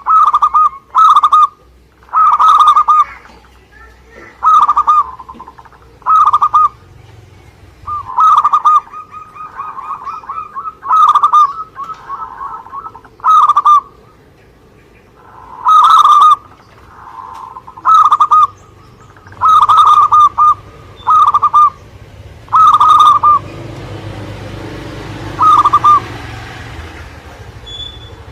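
Zebra dove (perkutut) cooing: a string of short, loud coos repeated every second or so, with softer purring notes between some of them.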